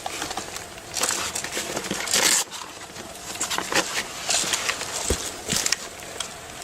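Crunching and rustling of someone moving quickly through dry undergrowth, in irregular loud bursts.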